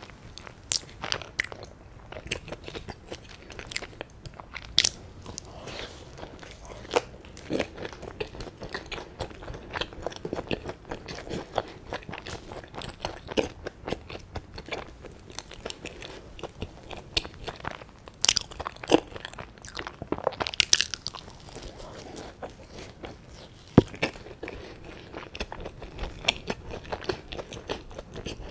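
Close-miked chewing of soft bread with a crumbly soboro streusel topping. Mouth clicks and small crunches recur irregularly throughout, with a few louder ones in the middle.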